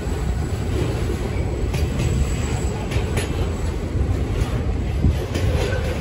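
Container freight train wagons rolling past: a steady low rumble of wheels on rail with a few clicks.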